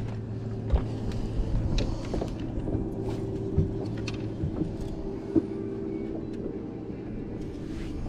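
Steady hum of a fishing boat's electric motor, with a few knocks and clicks from the boat and tackle.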